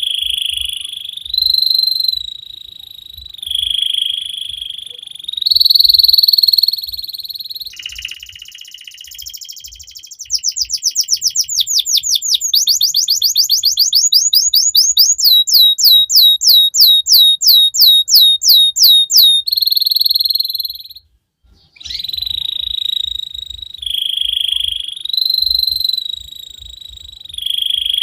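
Domestic canary singing a long song: rolling trills, then a run of fast repeated sweeping notes that slows to about four a second, a brief pause, and rolling trills again.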